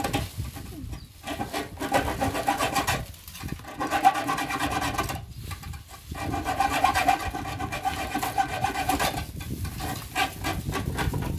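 Hacksaw cutting through the thin wall of a rusty steel drum in quick back-and-forth strokes, in runs broken by short pauses, with the drum giving a steady metallic ringing tone under the rasp.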